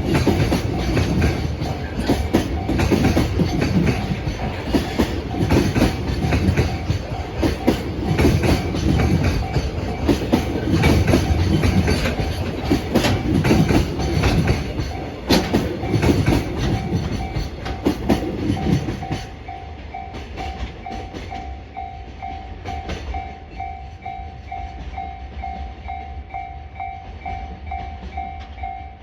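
Freight train of Koki container wagons rolling past at a level crossing, wheels clacking over the rail joints. The rumble cuts off sharply about two-thirds of the way through as the last wagon goes by. The crossing's warning bell keeps ringing in an even pulsed tone.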